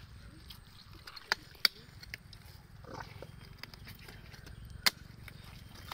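Three sharp clicks, two close together about a second in and one near the end, over a faint steady low hum.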